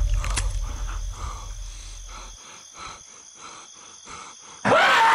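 A low rumbling drone fades out and stops about halfway through, leaving faint, even ticking at about four a second. Near the end, loud music cuts in suddenly.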